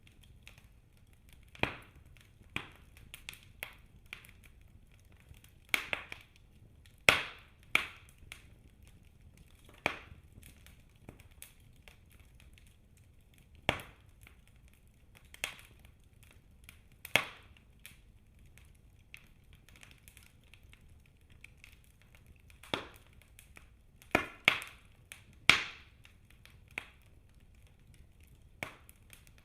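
Wood fire crackling and popping in a fireplace: irregular sharp cracks every second or two over a faint low hiss, with quick clusters of pops about seven and twenty-five seconds in.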